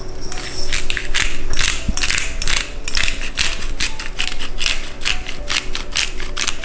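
Pepper grinder being twisted over the fish, its grinding mechanism giving a fast run of ratcheting, grating strokes, several a second.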